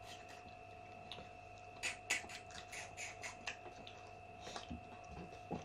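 Eating sounds of pork-trotter bones being chewed and sucked: a run of small sharp clicks and smacks about two seconds in, then a few soft knocks near the end, over a faint steady hum.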